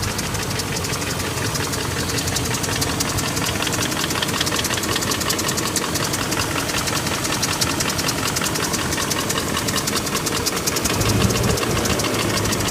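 BMW E38 740i's 4.4-litre M62TU V8 idling warm, with a rapid, even ticking/rapping over the engine note. The owner says this tick is absent at start-up and grows louder as the engine runs. The low engine note swells briefly about eleven seconds in.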